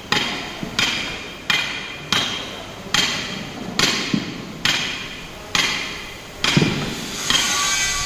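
Hammer blows on steel crane-wheel assembly parts, about ten evenly paced strikes a little under a second apart, each with a short metallic ring. Near the end a steady high-pitched grinding hiss and whine sets in.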